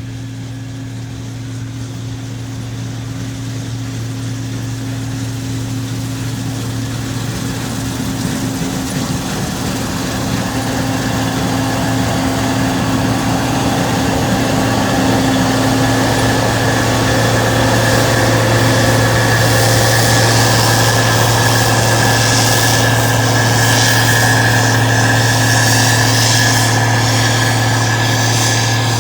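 A large engine running steadily with a low hum and a few fixed higher tones, growing gradually louder.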